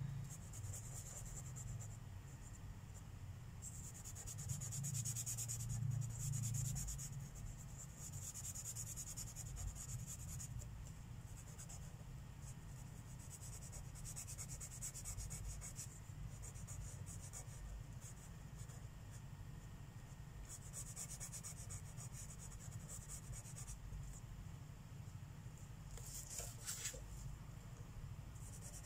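Marker tips rubbing on paper in repeated colouring strokes, in stretches of a second or a few seconds with short pauses, with one sharper click near the end. A steady low hum lies underneath.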